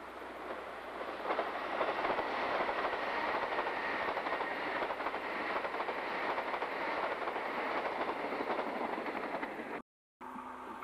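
A JNR 381 series limited express electric train passes close by, its steel wheels clattering over the rails. The sound swells about a second in and stays loud. It cuts off abruptly shortly before the end.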